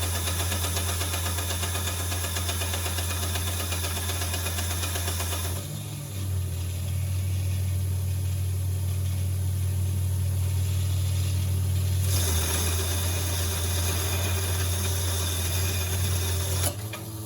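Homemade belt grinder driven by a washing-machine universal motor, running with a steady low hum. A hiss lies over the hum for the first five seconds or so and again from about twelve seconds in, stopping abruptly near the end.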